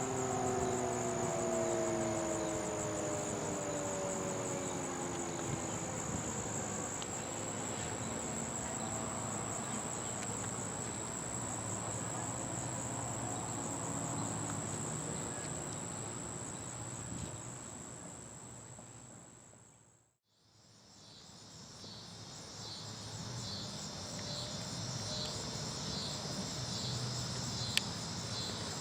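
A Federal Signal Thunderbolt 1000B siren winding down, its tones falling in pitch and fading away over the first few seconds, leaving a steady high insect drone. About two-thirds of the way through, the sound fades out briefly and returns as a pulsing chorus of insects.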